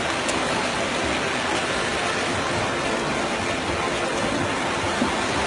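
Steady rushing splash of swimmers racing freestyle, arms and kicking feet churning the water of the pool lanes.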